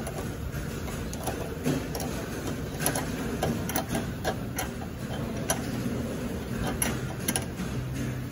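Socket ratchet clicking in uneven spurts, with metallic taps of the wrench and spanner, as a nut on a car's front suspension lower-arm bolt is turned. A steady low hum runs underneath.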